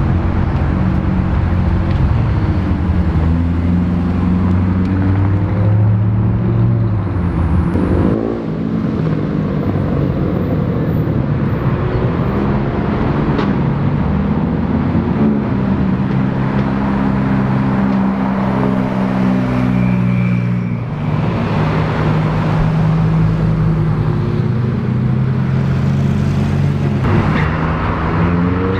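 McLaren sports cars' twin-turbo V8 engines running as the cars pull away and drive past on a street, heard in several cut-together clips. The engine note holds mostly steady and then rises as one revs near the end.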